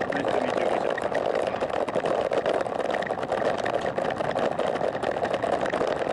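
Steady rushing ride noise of a road bicycle rolling at about 20 km/h: wind over the bike-mounted camera's microphone and tyre noise on asphalt.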